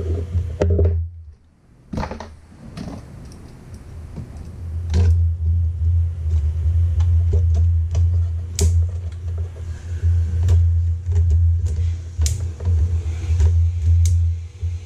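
Background music with a heavy low bass, which drops out briefly about a second in. Many small sharp clicks and taps run through it as pliers and metal parts are handled while wiring.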